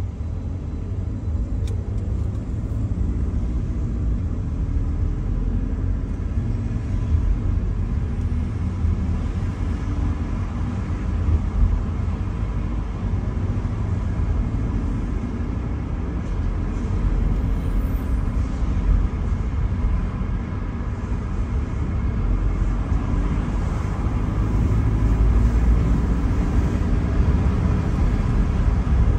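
Steady low road and engine rumble of a car driving, heard inside its cabin, a little louder near the end.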